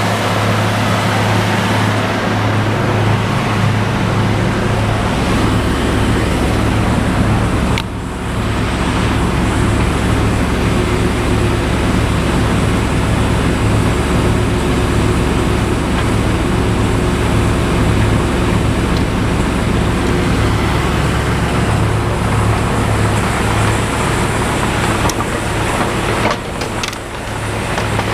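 Morbark 2755 flail chipper running with a steady, loud engine drone, with brief dips in level about eight seconds in and again near the end.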